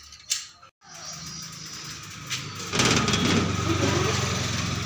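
A small engine running steadily, with a low hum that gets louder about three seconds in.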